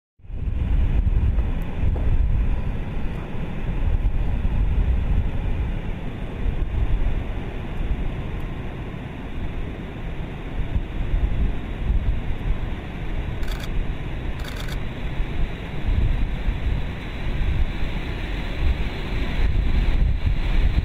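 A B-52 Stratofortress's eight jet engines running at takeoff thrust during the takeoff roll, making a loud, steady noise heavy in the low rumble. It cuts in abruptly right at the start.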